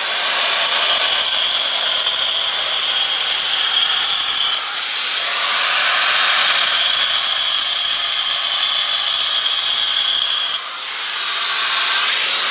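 Angle grinder with a cutting disc running and cutting into a wall along a marked circle: a steady high whine over a grinding hiss. Twice, about four and a half and ten and a half seconds in, the sound drops for a moment as the disc eases off the wall, then picks up again as it cuts on.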